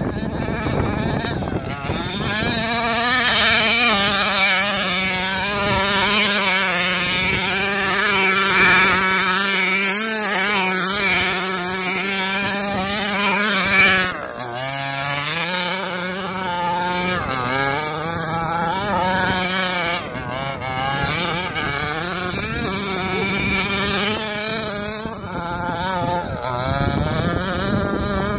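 An HPI Baja 1/5-scale RC buggy's 26cc two-stroke petrol engine running at high revs, its pitch wavering with the throttle. About halfway through, the revs drop and climb back up.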